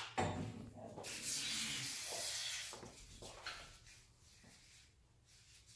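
Aerosol can of spray lubricant hissing in one burst of about two seconds, after a brief knock at the start.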